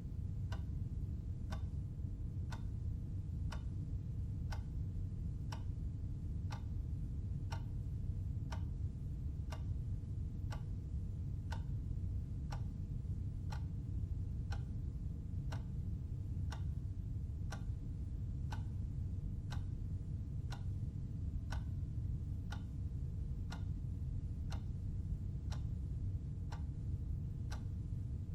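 Clock ticking steadily, about two ticks a second, each tick with a short ringing tone, over a constant low hum.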